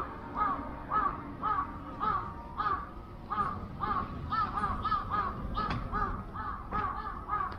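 Crows cawing over and over, about two calls a second.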